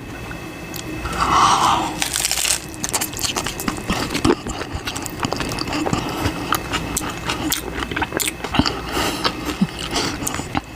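Close-miked eating of a crunchy hard taco shell: a loud crunchy bite about a second in, then steady chewing with many small crackling crunches.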